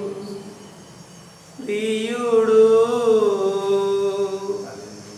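A man singing a Telugu worship song. A long held note fades away, then about one and a half seconds in he starts another long, wavering sung phrase that tails off near the end.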